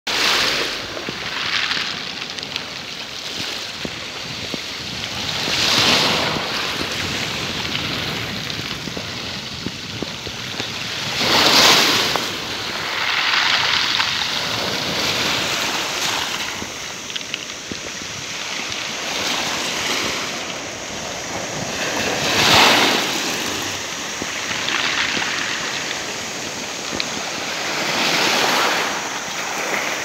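Small sea waves breaking and washing up a pebble beach, a steady rushing hiss that swells louder every several seconds as each wave comes in.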